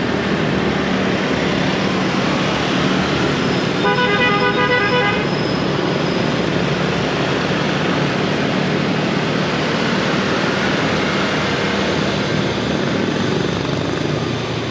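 Dense city street traffic heard from a moving motorbike: a steady din of engines and road noise, with a vehicle horn honking once for about a second, about four seconds in.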